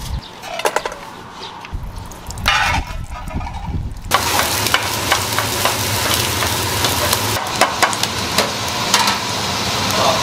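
A stiff plastic brush scrubbing a raw abalone for the first few seconds. About four seconds in, chopped abalone and onion begin sizzling in hot oil in a frying pan, with the clicks and scrapes of a spatula stirring them.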